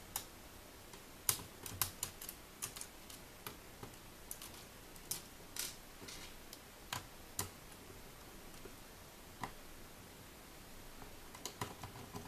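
Small screwdriver unscrewing the screen-hinge screws of a Lenovo ThinkPad T61: scattered light clicks and ticks of the bit on the screw head and of the laptop's plastic case, coming in small clusters with short pauses between.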